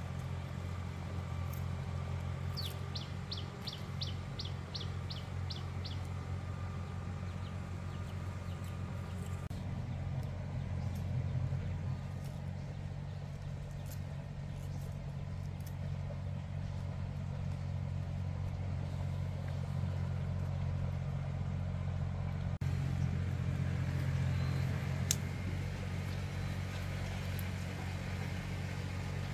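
A motor running steadily with a low hum. A few seconds in, a bird gives a quick run of about nine high chirps.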